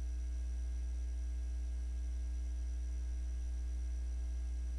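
Steady low mains hum, with a few fainter steady tones above it and a light hiss, unchanging throughout.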